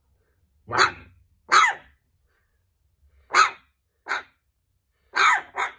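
Puppy giving six short, high barks, coming in three pairs with short pauses between.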